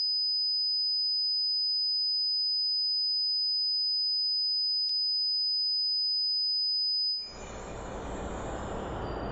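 A steady, high-pitched pure tone, like a ringing in the ears, cuts off suddenly about seven seconds in. A steady background rumble and hiss fades up in its place.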